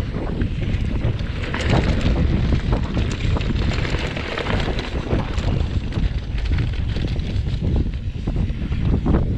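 Wind buffeting a camera microphone mounted on a mountain bike rolling fast down a dusty dirt trail, with a steady low rumble and many short clicks and knocks from the tyres and bike frame going over the rough, stony surface.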